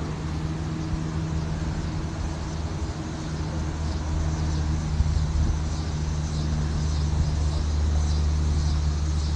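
A motor vehicle engine running steadily nearby, a low hum that grows a little louder in the second half.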